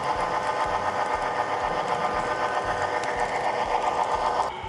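HO-scale model diesel locomotive's electric motor and gears running with a steady whir, heard close up from a car riding right behind it. The sound cuts off suddenly near the end.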